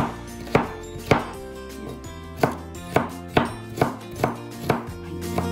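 Kitchen knife chopping carrot on a plastic cutting board while mincing it: about nine sharp strikes at an uneven pace. Quiet background music runs underneath and grows louder near the end.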